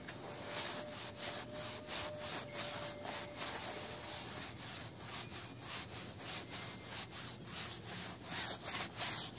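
Scouring sponge scrubbed back and forth over the quilted fabric side of a mattress: a rhythmic rubbing of quick strokes, about three a second.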